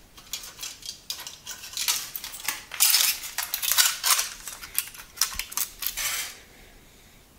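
Printed circuit boards from dismantled modems clattering and scraping against each other as they are gathered up by hand and lifted away. The rattling is busiest in the middle and stops about six seconds in.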